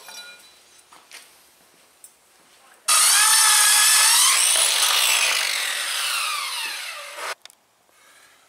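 Black & Decker circular saw starting about three seconds in and cutting across a wooden board, its pitch sliding down as the cut goes on, then cutting off abruptly about seven seconds in.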